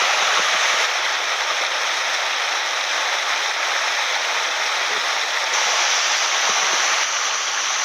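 A small mountain headwater stream running close by: a steady, even rush of flowing water.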